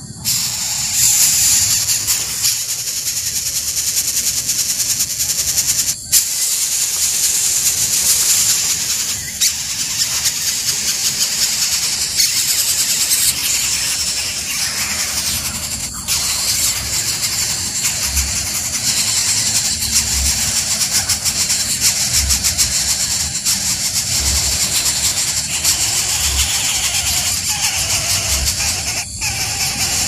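Greater coucal nestlings begging with continuous high-pitched, rapidly pulsing squealing calls, the noise chicks make when asking a parent for food.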